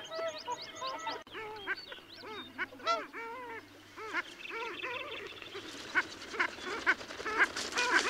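A flock of long-tailed ducks calling: many short, arched calls overlapping one another, with a few louder calls near the end. A hiss rises under them in the last couple of seconds.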